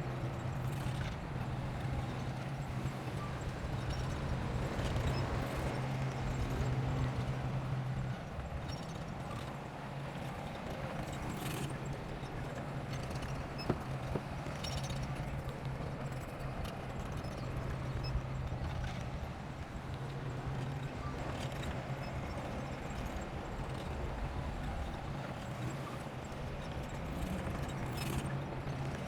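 Bulldozer's diesel engine running steadily with clanking from its steel crawler tracks; the engine eases off about eight seconds in and picks up again near the end, with one sharp knock about fourteen seconds in.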